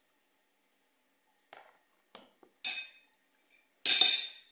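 Metal fork scraping and clinking against a plate in a few short strokes, the loudest and longest about four seconds in.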